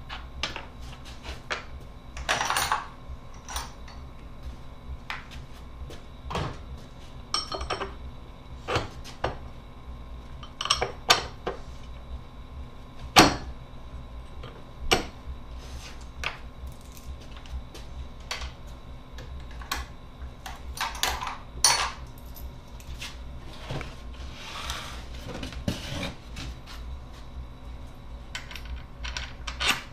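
Irregular clinks and knocks as a metal hub flange and its bolts are handled and set against a plywood wheel center, a few of them sharper, over a steady low hum.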